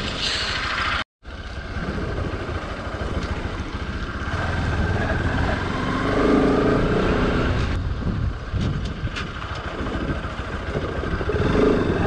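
Motorcycle engine running on the move, heard with wind and road noise from a bike-mounted camera; the sound cuts out for a moment about a second in.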